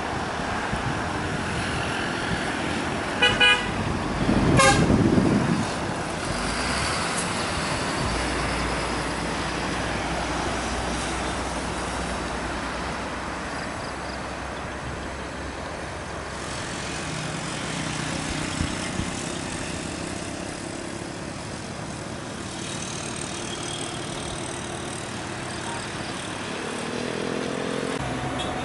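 An intercity bus's horn sounds as the bus passes: a quick run of short beeps about three seconds in, then a louder horn blast lasting about a second. Steady engine and road noise runs underneath.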